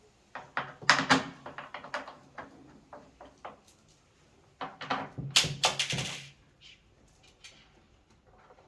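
Hard parts of a front-loading washing machine being worked on by hand: rapid clicks and knocks in two bursts, the second starting about halfway through.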